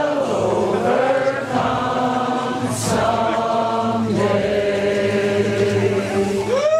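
A crowd singing together in slow, long-held notes. Near the end, whoops and cheering start to break in.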